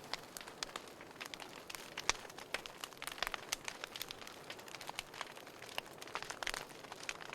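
Wood fire crackling in a fireplace: irregular snaps and pops over a soft hiss, with one sharper pop about two seconds in.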